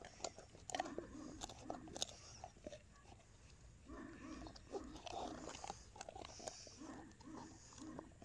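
A Newfoundland dog gnawing a chew bone: chewing with repeated sharp clicks of teeth on the bone, easing off for a moment near the middle.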